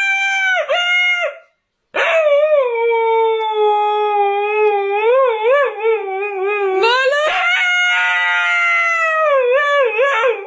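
A dog howling: a long howl that breaks off about a second and a half in, then a second, much longer howl that wavers in pitch, goes higher about seven seconds in and drops back near the end.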